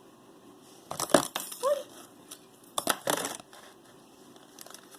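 Costume jewelry pieces being handled and sorted, clattering in two short bursts about a second and about three seconds in.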